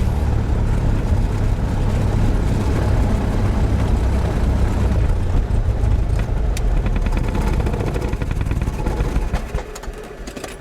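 Cessna 172's four-cylinder piston engine running steadily at low power while the plane taxis after landing; the rumble falls away near the end.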